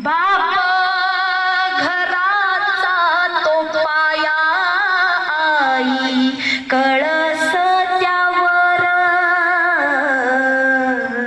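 A woman singing a slow Marathi kirtan melody, holding long notes that waver with vibrato, with a short break about two-thirds of the way through.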